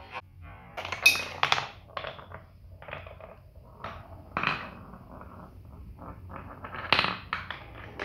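Large ball rolling along a wooden marble-run track, a faint rumble broken by clacks and knocks as it crosses the joints between track pieces. A cluster of sharp knocks comes about a second in, and another near seven seconds in.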